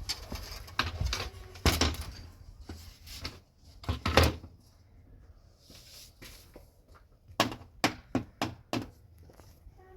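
Scattered knocks and thuds of hard objects being handled and set down, with a quick run of sharp knocks near the end.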